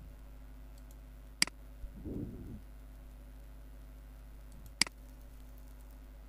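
Two sharp computer mouse clicks, about three and a half seconds apart, over a faint steady hum.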